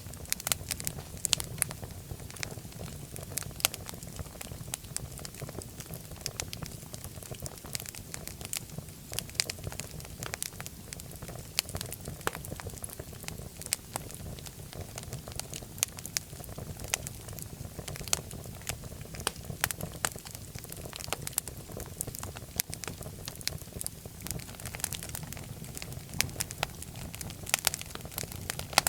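Wood fire crackling in a fireplace: many sharp, irregular pops and snaps over a steady low rumble of flame.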